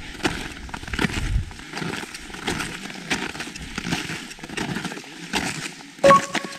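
Footsteps crunching in hard snow at a walking pace, a crunch every half second or so. About six seconds in comes a sharper knock with a short ringing tone.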